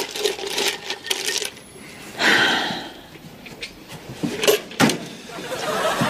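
Light clinks of glass and metal from a champagne bottle and ice bucket being handled, several separate sharp clinks.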